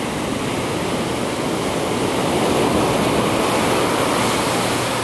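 Ocean surf breaking and washing onto a beach, a steady rush of water that swells a little partway through.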